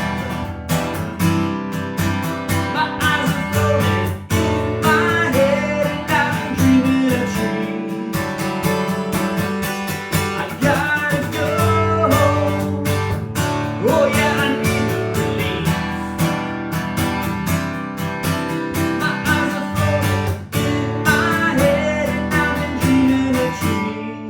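Acoustic guitar strumming in an instrumental break of a song, with a melody line over it that slides and bends in pitch.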